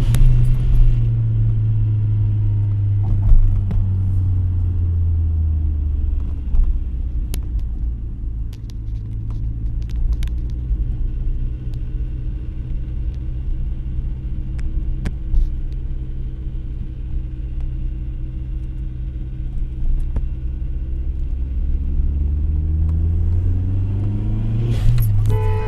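Audi A3's 1.8-litre turbo four-cylinder engine heard from inside the cabin while driving, its pitch dropping over the first few seconds, holding steady, then rising again near the end. The car is being recorded for a strange rattle that the uploader hears at about 1900 rpm.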